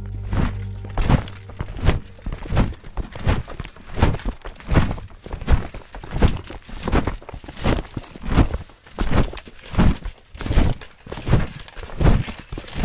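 Heavy thuds in a steady rhythm, about three every two seconds, each one sharp with a short tail.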